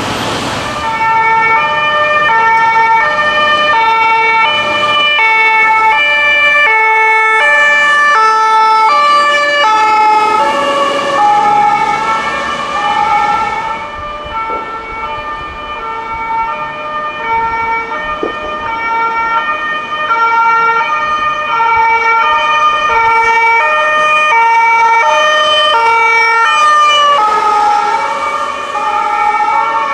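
Ambulance two-tone siren alternating between two pitches about twice a second. Near the end the pitch drops slightly as the ambulance passes and drives away.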